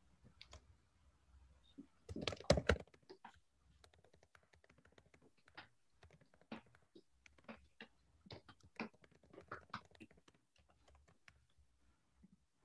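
Computer keyboard typing: a quiet, irregular run of key clicks, with a louder cluster of knocks about two seconds in.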